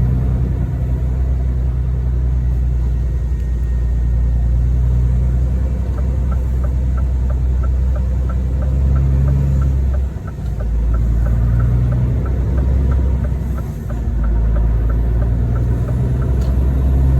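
Scania 540 S truck's 13-litre inline-six diesel engine running on its stock exhaust, picked up by a phone, with two brief drops in level about ten and fourteen seconds in. A faint, regular ticking, about three a second, runs through the middle stretch.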